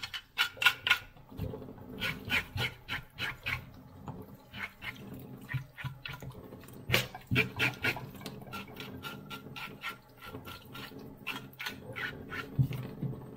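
A knife scraping the scales off a whole sea bass in a stainless-steel sink, in quick runs of short strokes, with the tap running. In the later part the fish is being rubbed and rinsed under the tap.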